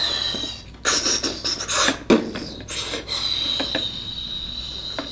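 Hard plastic rubbing and scraping in several short bursts, with a few sharp clicks about three and a half seconds in, as a toy TIE fighter popcorn bucket and its wing panel are handled.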